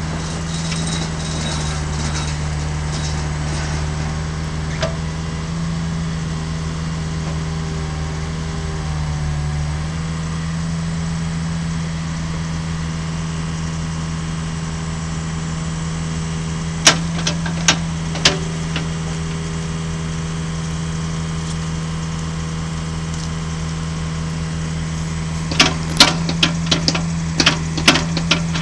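Ditch Witch MX502 mini excavator running steadily while its boom, arm and bucket are worked. The engine note changes about ten seconds in. A few sharp knocks come a little past halfway, and a quick cluster of them near the end.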